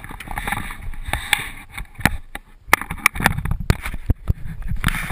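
Irregular knocks, clicks and rubbing from a GoPro in its housing being handled and turned over, over a low rumble.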